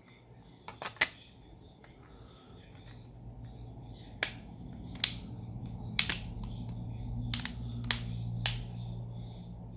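Sharp plastic clicks from the Xiaomi Redmi A2 phone being put back together by hand: a quick cluster of three about a second in, then single clicks every second or so. Under them, a low steady hum grows louder toward the end.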